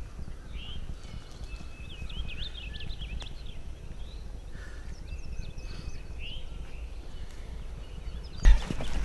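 Songbirds chirping and whistling in spring woods over a low rumble, then about eight and a half seconds in a single sudden loud blast, a shotgun shot at the gobbler, followed by rustling and thrashing.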